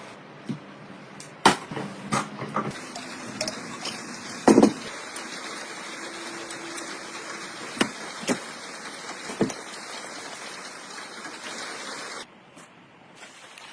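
Half a dozen sharp, irregular knocks over a steady rushing noise. The rushing noise cuts off shortly before the end.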